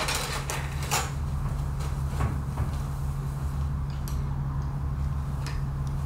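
Handling noise from a phone camera being picked up and carried: scattered clicks and knocks over a steady low hum.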